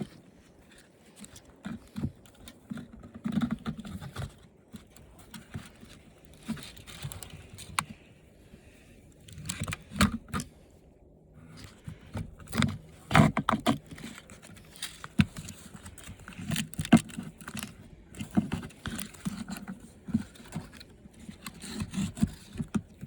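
Irregular clicks, knocks and scrapes of hard plastic and metal parts being handled and pried at while an old television is taken apart.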